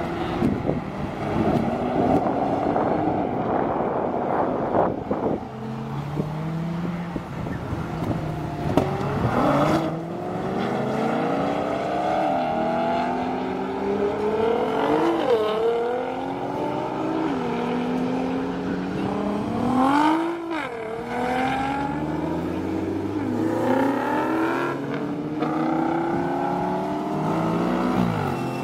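Sports car engines revved hard around a tight coned course, the engine note climbing and then dropping sharply again and again with each gear change.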